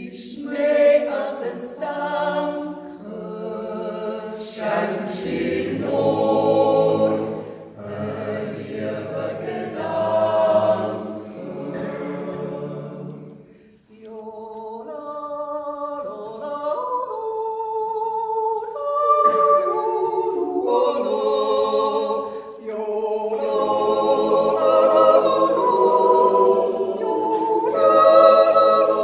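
Mixed Swiss yodel choir of men and women singing a cappella in harmony, in a wordless yodel passage. The voices break off briefly about halfway through, then come back in, fuller toward the end.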